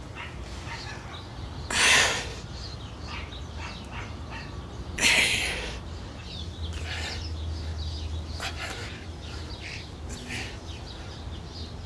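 A man lifting weights exhales forcefully twice, about three seconds apart, in time with his bench-press reps.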